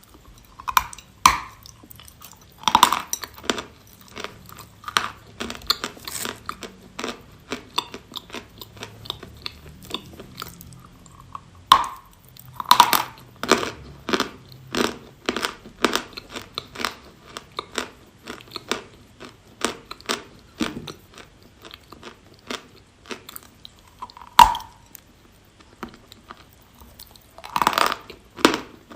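A piece of chalk being bitten and chewed close to the microphone. Sharp, loud crunching bites come every few seconds, with runs of smaller, quicker crunches between them as it is chewed.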